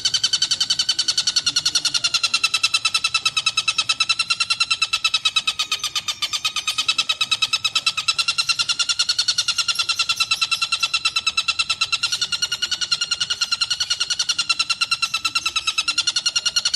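A bird's call: one buzzy note repeated very fast and evenly, about ten times a second, holding the same pitch throughout, as in a looped recording of a bird's song used to teach a caged bird.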